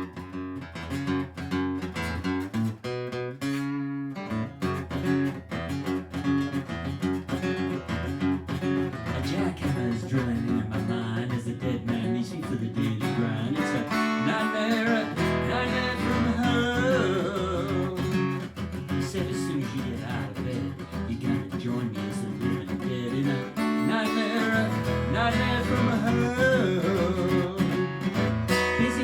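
Instrumental song intro: strummed acoustic guitar chords, with a bending melody line over them from about halfway through.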